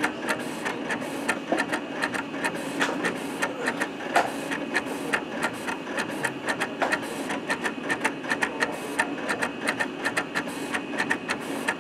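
Roland vinyl-cutting plotter drawing with a felt-tip marker fitted in place of its blade. Its carriage motors run with a steady whir while the pen head ticks and taps in quick, irregular clicks as it sweeps back and forth over the paper.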